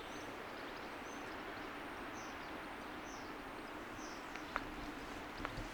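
Steady outdoor wind noise with a small bird chirping high and short about once a second, and a few sharp clicks near the end.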